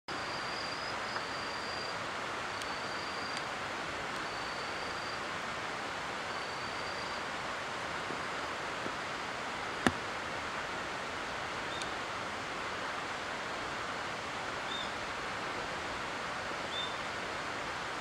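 Steady outdoor hiss with an insect's high, thin trill repeating in phrases of about a second during the first half. There is one sharp click about ten seconds in, and a few brief high chirps later on.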